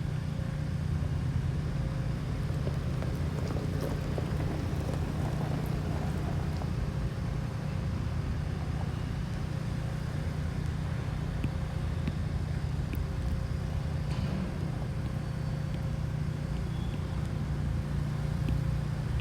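Steady low rumble of truck engines and street traffic, with a faint constant hum.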